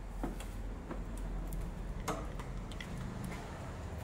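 Faint, sharp clicks at an uneven pace of about two or three a second, over a low steady hum.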